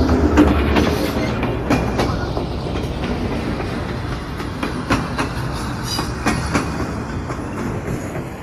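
A train running on rails: a steady low rumble with irregular wheel clicks, slowly fading.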